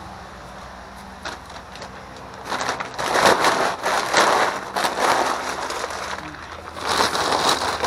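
A plastic trash bag rustling and crinkling as it is handled, in bursts, the longest starting about two and a half seconds in and another near the end.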